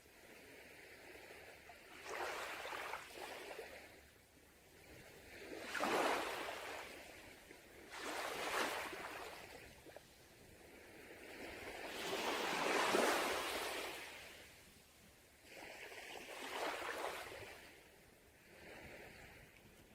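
Sea waves breaking on a beach and washing back, in five swells of hiss that rise and fall every few seconds; the longest and loudest comes about two-thirds of the way through.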